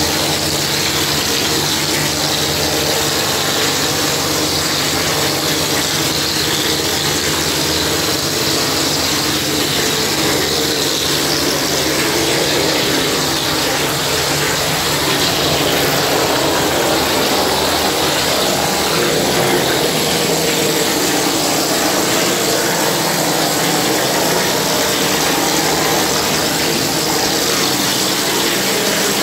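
Gypsum plaster being sprayed onto a masonry wall from a plaster spraying machine's spray lance: a steady hiss of compressed air and plaster, with the machine's pump humming steadily underneath.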